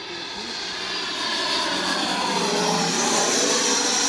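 Taiwan Tornado 120 mm electric ducted fan in a Skymaster RC jet making a high-pitched whine over a rush of air during a flypast. It grows louder as the jet approaches and is loudest near the end.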